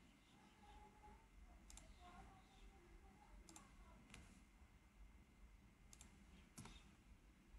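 Faint computer mouse clicks: about five sharp single clicks, some in quick press-and-release pairs, spread over several seconds against faint room hiss.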